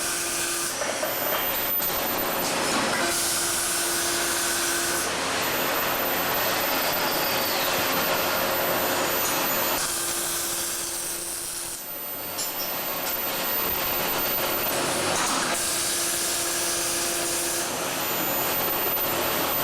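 Welding arc on an exhaust pipe: a steady, loud hissing crackle, its texture shifting every few seconds.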